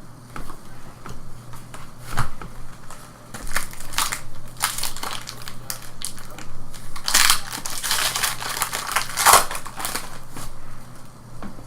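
Foil trading card packs crinkling and tearing as they are ripped open, in irregular crackling bursts, loudest in the middle and again later.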